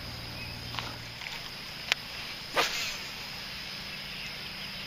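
Bass Pro Shops XPS popper lure being popped on the pond surface: a sharp click just under two seconds in, then a short splashy pop a little over half a second later, over a steady faint high whine.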